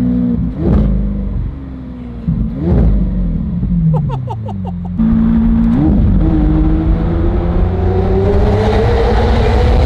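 Straight-piped Lamborghini Aventador V12 engine running loud: its pitch sinks over the first few seconds, with two short sharp cracks. About halfway it turns abruptly louder and climbs steadily in pitch as the car accelerates hard.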